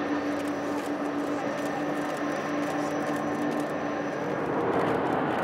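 Airbus A300 freighter's jet engines at taxi power as it rolls by: a steady hum and whine over a rushing noise.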